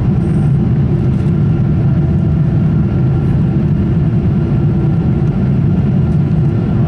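Steady, loud cabin roar of a Boeing 777-200ER in flight, its engines and airflow heard from a window seat over the wing during the climb after takeoff.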